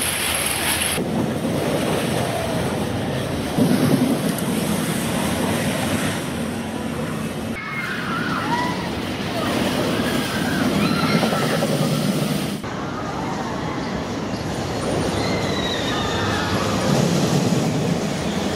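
Steel roller coaster trains rumbling along the track close by, with riders' shouts and screams over the rumble in the second half. The sound changes abruptly three times, with a brief louder surge about four seconds in.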